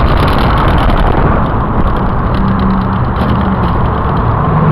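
Loud, steady low rumble of outdoor road traffic mixed with wind buffeting the microphone, with a brief low hum about halfway through.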